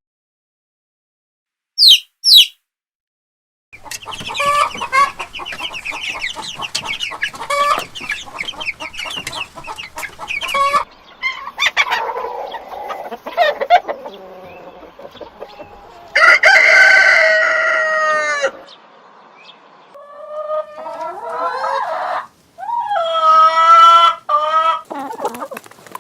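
Chickens calling: a flock of hens clucking busily, followed by a rooster crowing several times, each crow about two seconds long. Two brief high chirps come just before the clucking starts.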